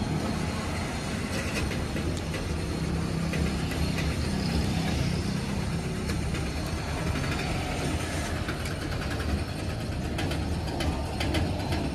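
A motor runs steadily with a low rumble, with a quick run of light clicks in the last few seconds.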